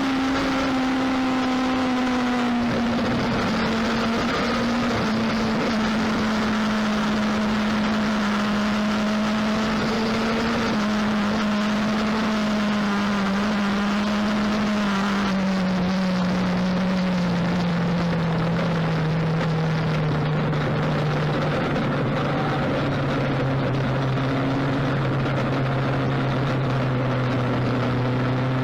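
Lightning sprint race car engines running on a dirt track: a steady engine drone whose pitch slowly sinks over the second half.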